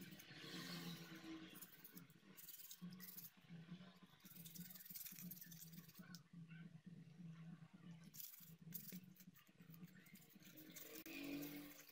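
Faint scratching and crinkling of wet aluminium foil being rubbed over a TV remote's circuit board to clean the button contacts, over a low steady hum.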